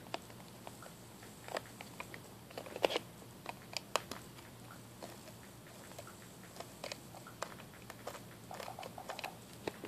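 A screwdriver and a plastic speaker housing being handled as a screw is worked loose: scattered small clicks and crackles, a little denser near the end.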